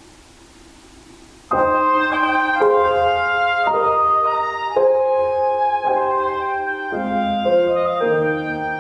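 Faint room hiss, then about a second and a half in a recorded backing track starts abruptly: an instrumental intro of keyboard notes and chords, changing about every half second, with lower notes coming in near the end.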